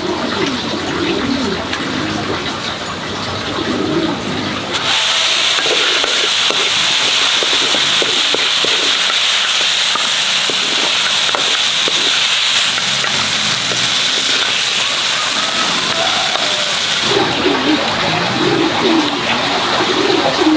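A steady rush of splashing water that starts suddenly about five seconds in and stops suddenly about four seconds before the end. Short animal or bird calls are heard before and after it.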